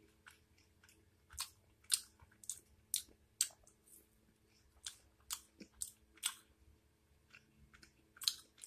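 Close-up chewing and wet mouth smacks of a person eating a soft cake fry dipped in icing, in short irregular clicks about two a second.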